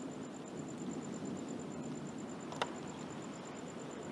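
Low, steady rumble of an erupting volcano and its lava flow, with an insect's high chirp pulsing rapidly and evenly over it. A single sharp crack about two and a half seconds in.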